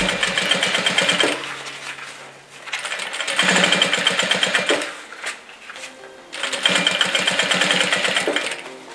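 Industrial lockstitch sewing machine stitching a topstitch seam through synthetic fabric, running in three short spurts with pauses between them as the fabric is repositioned.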